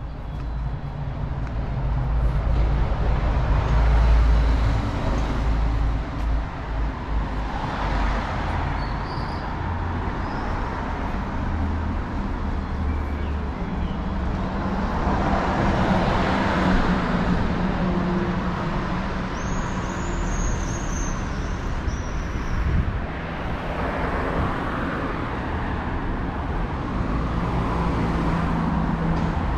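Street traffic: cars passing one after another, their engine and tyre noise swelling and fading roughly every eight seconds over a steady low rumble. A short run of high chirps comes about two-thirds of the way through.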